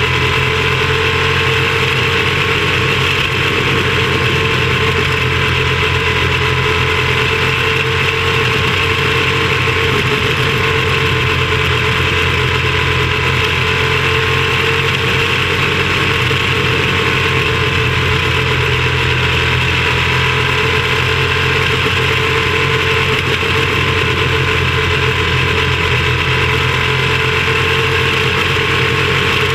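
Quarter midget race car's small engine running steadily at speed, heard from on board, its note dipping and rising only slightly.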